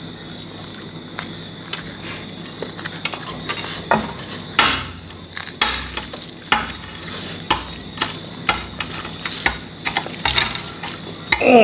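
Shells of hard-boiled eggs being cracked and peeled off by hand: an irregular run of small crackles and sharp clicks. A short falling vocal sound comes at the very end.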